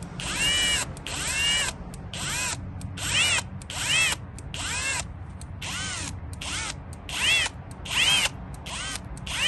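Cordless drill running in reverse at low speed with a screw extractor bit, backing out a stripped screw. It is run in short trigger pulses, a little more than one a second, and the motor whine rises and falls with each pulse.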